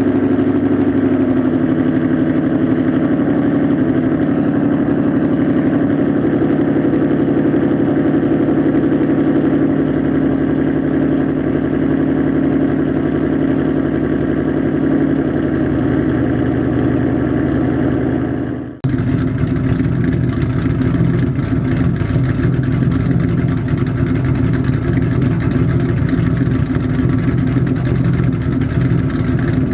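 Cammed Ford 4.6L 2V V8 with Comp XE262AH cams, long tube headers, H pipe and straight pipes, running steadily at idle. About two-thirds of the way through the sound breaks off and comes back deeper and rougher.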